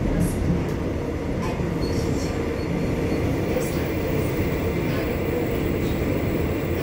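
Busan Metro Line 1 subway car running, heard from inside the car: a steady low rumble of wheels and running gear, with a few faint clicks.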